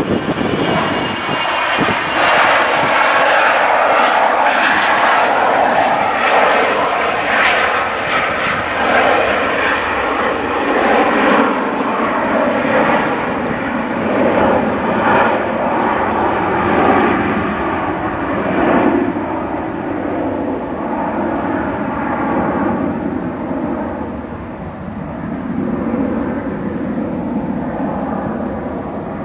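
Large twin-engine business jet taking off at full thrust: a loud jet roar with a crackling flutter as it climbs out, fading gradually in the last third as it draws away, with a steady whine underneath.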